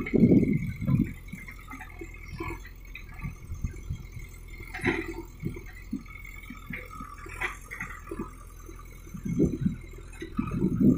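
JCB backhoe loader's diesel engine running steadily while the rear backhoe digs, with louder low rumbling surges at the start and again near the end and scattered short knocks in between.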